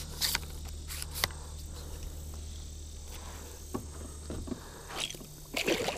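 Insects buzzing steadily over a low hum, with a few light knocks and clicks and a short burst of louder scuffling noise near the end.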